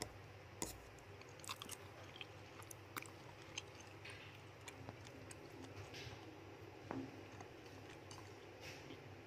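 A rat chewing and nibbling food, making faint, irregular crunching clicks with a few sharper clicks among them.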